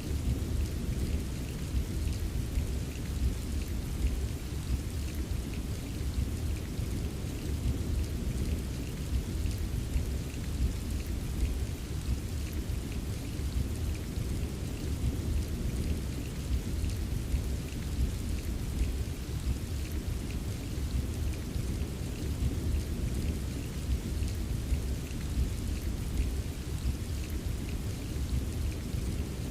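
Steady heavy rain: a dense, continuous low rumble with the fine patter of drops over it.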